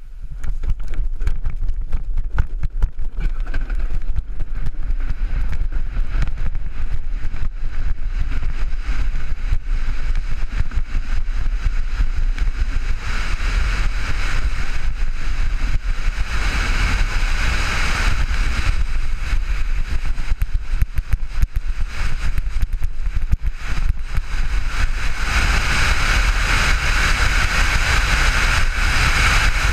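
Luge sled's steel runners hissing and rattling over the ice at speed, with a low rumble of wind and vibration on the helmet-mounted microphone. The scraping hiss swells twice, for several seconds each time.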